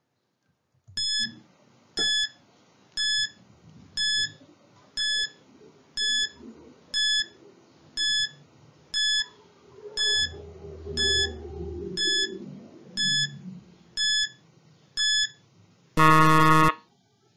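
Countdown timer beeping: fifteen short high beeps, one each second, then a louder, lower buzzer lasting under a second, signalling that the fifteen seconds are up.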